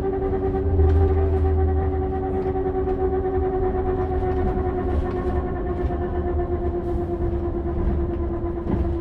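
A Volvo vehicle running steadily: a low rumble under a droning whine of several steady tones that drift slightly lower in pitch.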